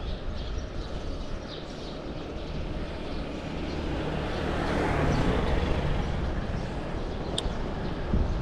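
A motor vehicle passing, swelling to its loudest about five seconds in and then fading, over steady wind and road noise.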